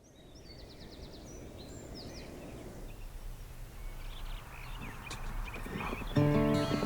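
Outdoor ambience fading in: a low rumbling background with small birds chirping now and then. About six seconds in, music starts abruptly and much louder.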